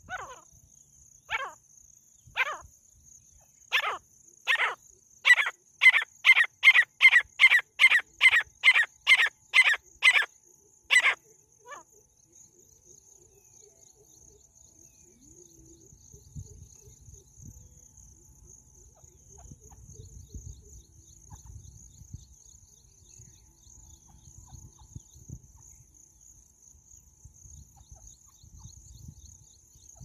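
Female francolin (teetar) calling: a series of sharp, high notes that start about a second apart, speed up and grow louder into a rapid run of about three notes a second, then stop about eleven seconds in. A steady high hum and faint low rumbling are heard throughout.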